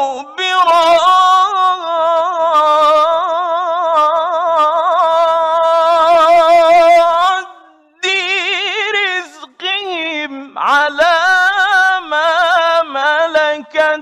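A solo male voice chanting the Quran in the melodic mujawwad style. About seven seconds in, one long ornamented phrase with a wavering vibrato ends. After a short breath, a second phrase begins, with a sharp upward swoop in pitch near the middle.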